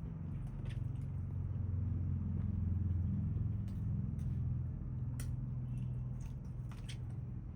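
A low rumble that swells over the first few seconds and eases off, with a few soft clicks scattered through it.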